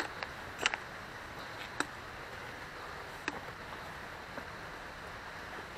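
A hiker's footsteps on a rocky mountain path: a few scattered knocks and clicks over a steady rushing noise.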